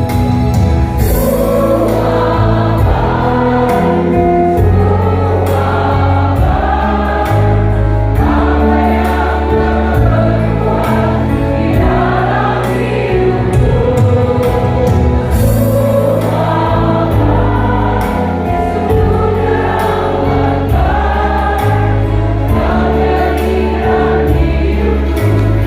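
A mixed choir of family members singing a song in parts over instrumental accompaniment with sustained bass notes that change every second or two.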